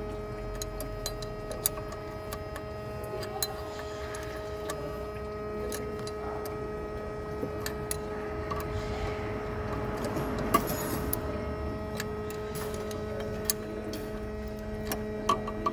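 Steel open-end wrench ticking and clicking against the brake-line flare nuts on an ABS hydraulic unit as the nuts are snugged down by hand. Scattered sharp metal clicks sound over a steady hum.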